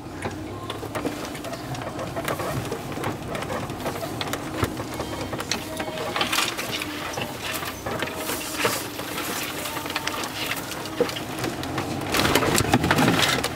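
Off-road 4x4 crawling over a rough forest track, heard from inside the cabin: a low, steady engine hum under constant rattling and clicking of the body and loose gear over the bumps. The rattling grows louder and denser near the end as the vehicle drops onto muddy ground.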